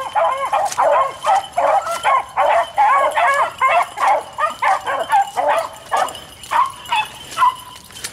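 A pack of beagles baying as they run a rabbit's track, many short yelping cries overlapping at once. They thin out to a few cries near the end, one drawn out longer.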